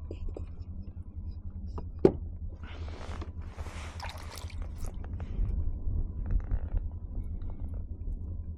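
Low wind rumble on the microphone, a sharp knock about two seconds in, then a couple of seconds of splashing as a hooked speckled trout is brought to the kayak.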